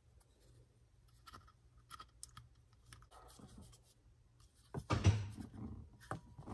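Faint scratching and clicking of hands tucking wiring behind carpet and plastic trim, with a louder rustle about five seconds in.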